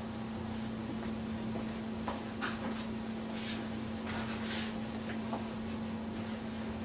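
A steady low electrical hum, with a few faint rustles and soft knocks in the middle as a person shifts and settles close by.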